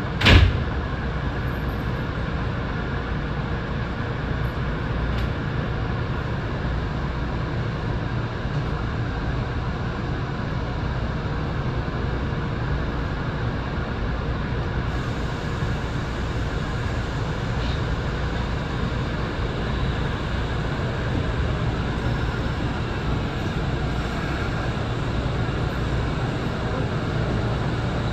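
Steady train noise around a Kintetsu 6820 series commuter train, with one sharp knock just after the start.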